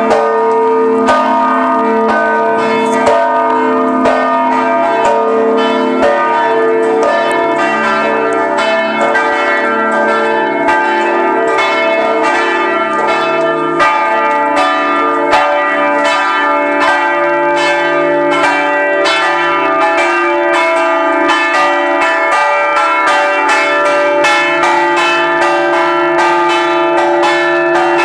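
Church bells of the Ħaż-Żabbar parish church pealing for a procession: several bells of different pitch struck in rapid, continuous succession, their strokes ringing over one another, the strokes coming closer together in the second half.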